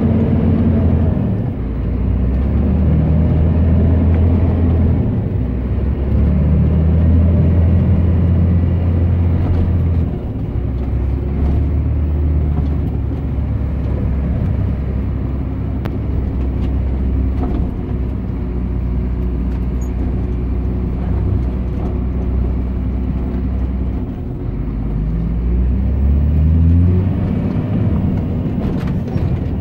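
Scania 114 G 380 truck's diesel engine heard from inside the cab while driving. The engine note drops and climbs in steps as the gears go up, and it rises quickly near the end.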